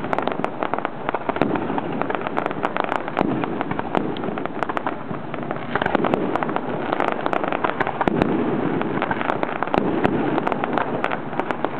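Aerial fireworks display: shells bursting overhead in a rapid, unbroken run of sharp bangs and crackles.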